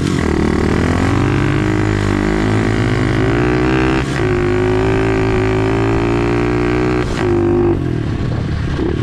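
SSR pit bike's single-cylinder four-stroke engine running under throttle over rough grass. Its pitch rises and falls, with short breaks about four and seven seconds in, then holds steady between them.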